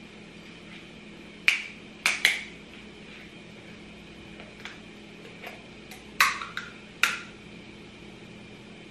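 Sharp plastic clicks and snaps from the cap of a small cooking-oil bottle being worked open by hand: a group of three about a second and a half in and another three about six seconds in, over a steady low room hum.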